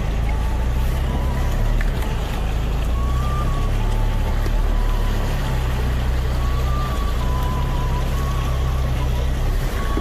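Vehicle driving, with a steady low rumble of engine and road noise. A faint melody of background music sits over it.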